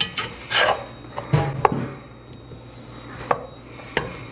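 Metal slotted spatula scraping and knocking against the bottom of a cast-iron pot as flour and softened butter are worked together for a roux: about half a dozen irregular scrapes and taps.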